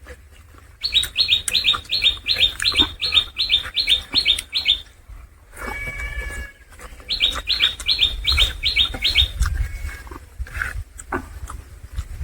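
Rapid runs of short, high chirps, about four a second, in two bursts of a few seconds each, with a brief pitched call between: a small bird calling.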